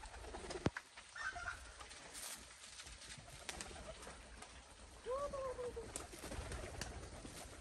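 A domestic pigeon coos once, a single rising-then-falling call about five seconds in. A sharp click under a second in is the loudest moment.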